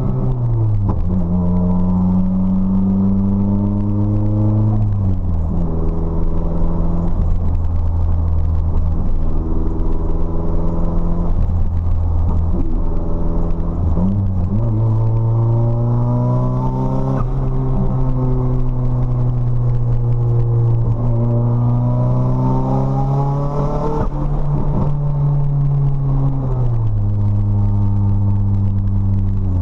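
Nissan SR20DET turbocharged four-cylinder engine with a 3-inch straight-piped exhaust, driving, its note falling and rising several times as the car slows and speeds up. The engine is breaking up, which the driver puts down to spark plugs gapped too small and fouled with carbon from running rich.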